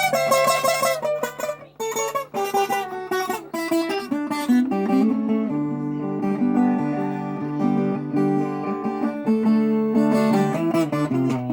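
A viola caipira with a jacarandá (Brazilian rosewood) body, played solo: a plucked melody of single notes and chords over held bass notes, demonstrating the instrument's tone.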